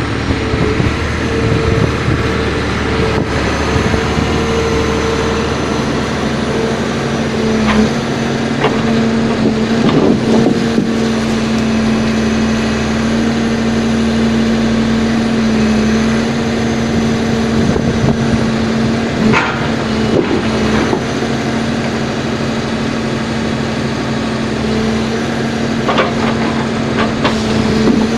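Heavy diesel forestry machine running steadily, with a held whine and a few sharp knocks and clatters along the way.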